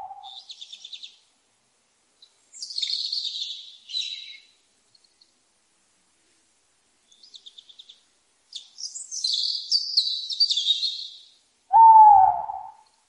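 Owl calls: two long, harsh, high screeches, about two seconds in and again from about eight and a half seconds, short rapid ticking trills between them, and a single low hoot near the end, with silent gaps between the calls.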